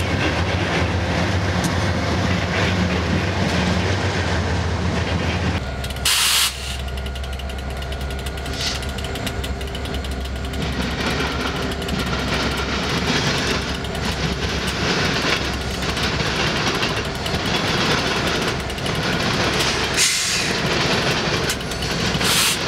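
BNSF freight train passing: the diesel locomotives' engines running as they go by, then an abrupt change about six seconds in to freight cars rolling over the rails with a steady rumble. A brief loud rush of noise comes just after the change, and another near the end.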